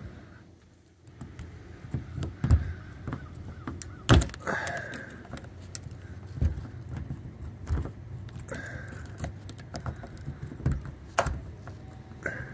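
Pliers working the metal latch mechanism of a broken door knob, shifting the stuck latch piece aside to free the latch bolt: irregular metallic clicks and clinks with a few brief rings.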